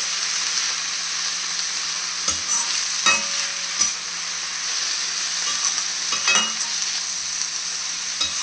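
Chopped spinach and fenugreek leaves sizzling in hot oil in a stainless-steel kadhai, stirred with a perforated metal spoon that scrapes and clinks against the pan about five times.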